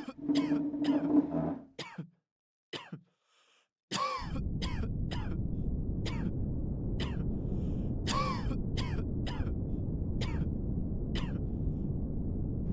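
Simulated exam-room background noise: repeated short coughs and throat clearing at irregular intervals. From about four seconds in, a steady low rumble runs underneath.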